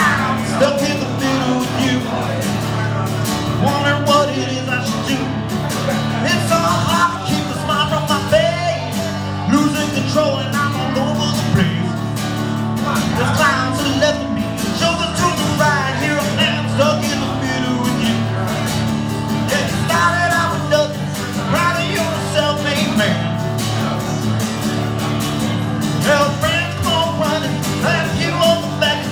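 A man singing live, accompanying himself on a strummed acoustic guitar, with sung phrases coming and going over steady chords.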